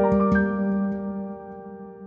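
Background music: two quick struck notes, then a held chord ringing on and fading away.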